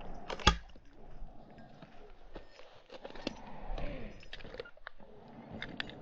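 Footsteps crunching and rustling through dry grass and brush, with scattered clicks and one sharp knock about half a second in.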